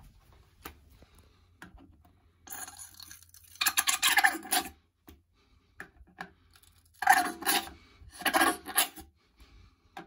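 Plastic bottle of toilet gel being squeezed, spluttering and squelching as the gel squirts into a toilet rim block holder, in a few bursts of about a second each.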